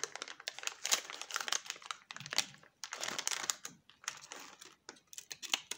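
Clear plastic packaging bag crinkling in irregular bursts as it is handled and opened by hand.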